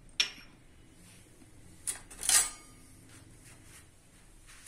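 A few short clinks and knocks of kitchen utensils being handled: a sharp click just after the start, then two quick knocks about two seconds in, the second louder.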